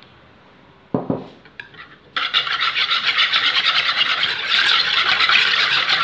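A single knock about a second in, then a wire balloon whisk beating fast against the sides of a plastic mixing bowl from about two seconds on, a loud rapid scraping rhythm as sugar is whisked into the oil, milk and ricotta.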